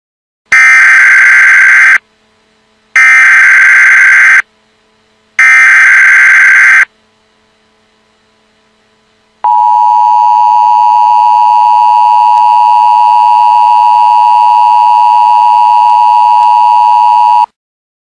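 Emergency Alert System tones, loud: three short buzzy bursts of SAME header data, each about a second and a half long, then after a pause of a couple of seconds the steady two-tone EAS attention signal for about eight seconds, which cuts off abruptly.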